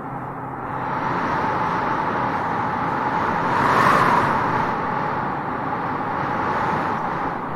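Wind blowing across open grassland, a steady rush that swells in a gust about four seconds in and eases off again.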